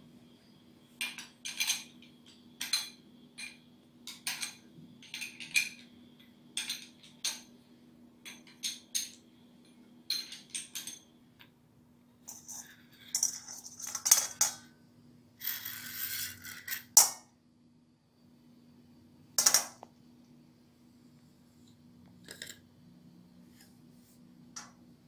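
Honda CD front-fork tubes being handled and taken apart over a metal pan: sharp metallic clinks and taps about once a second, some of them ringing, then a few seconds of metal scraping and sliding against metal, and a few single clanks near the end.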